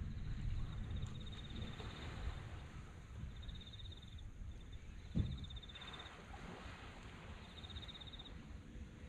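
An insect trilling at a high pitch in short bouts of about a second, four times, over a low rumble of wind on the microphone. A single thump about five seconds in.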